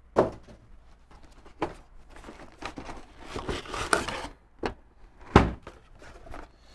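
Cardboard packing pieces being pulled off a printer: a few dull knocks, with a stretch of cardboard and plastic dust-cover rustling in the middle. The loudest knock comes about three-quarters of the way through.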